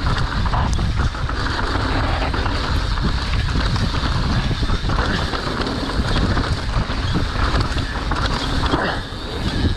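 Wind rushing over an action camera's microphone as a mountain bike descends a dirt trail at speed. The tyres rumble and the bike rattles, with frequent short knocks over rough ground.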